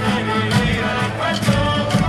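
Music with a steady beat, about two beats a second, under a held melody.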